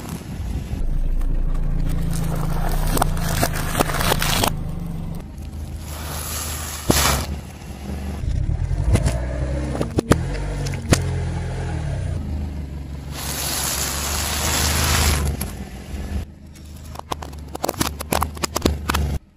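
A car tyre slowly rolling over and crushing objects one after another, including an aerosol deodorant can that bursts and sprays with long hisses. Sharp cracks and snaps come as things give way. The car's engine runs low underneath.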